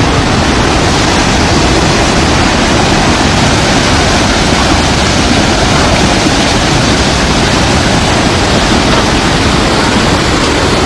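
Muddy floodwater rushing in a fast torrent, loud and steady.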